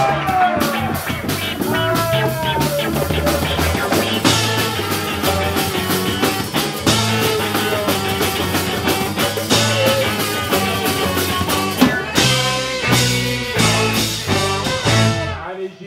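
Live band with trumpet, saxophone, electric guitars and drum kit playing an upbeat song. Near the end the song closes on a run of full-band accented hits and then stops.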